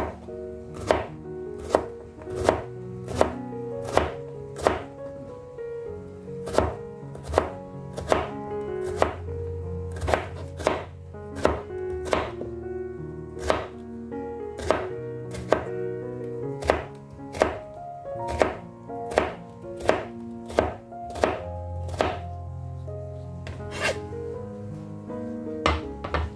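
A wide-bladed kitchen knife chopping bitter melon into slices on a plastic cutting board: sharp cuts roughly once a second, over soft background music.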